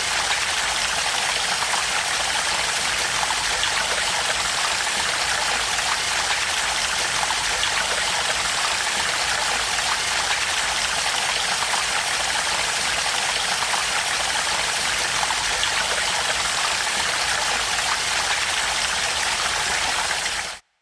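Flowing water: a steady stream of running, splashing water that stops abruptly just before the end.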